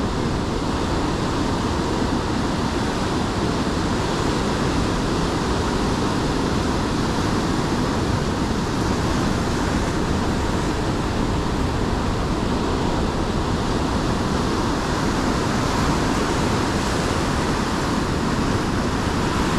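Ocean surf from a rough spring-tide sea: a steady rush of breaking waves.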